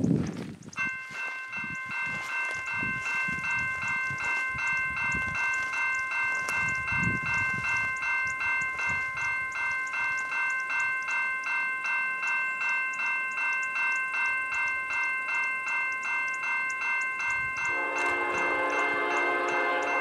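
Electronic railway crossing warning bell ringing, a bright pitched ding repeating at a steady, even beat. Near the end a deeper chord of several tones joins: an approaching locomotive's air horn.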